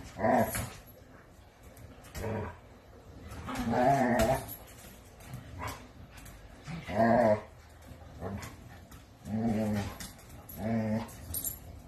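Dogs growling in play-fighting, in about half a dozen short bursts.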